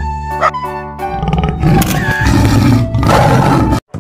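Cartoon background music, then a loud animal roar sound effect from about a second in, lasting nearly three seconds and cutting off abruptly just before the end.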